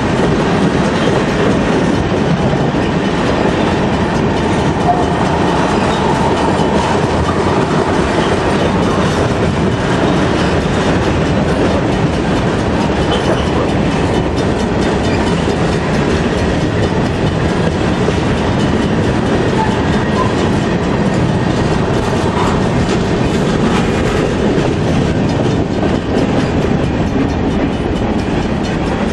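A freight train of tank cars rolling past close by: the steel wheels running on the rails make a steady, loud noise.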